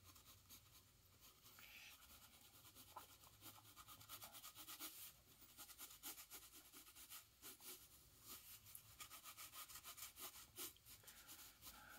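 Faint scratching of a graphite pencil sketching on paper: many short strokes, one after another.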